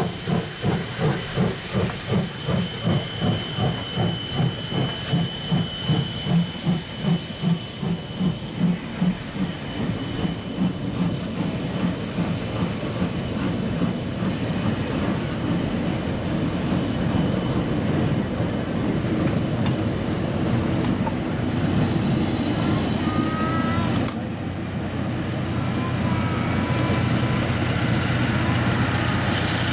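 C58 steam locomotive working slowly uphill, its exhaust chuffing in an even beat of about two and a half a second under a steady high whistle-like hiss. The chuffs fade after about nine seconds and give way to the steady rolling noise of the passenger coaches passing, with a few brief high squeals. A low steady hum comes in near the end.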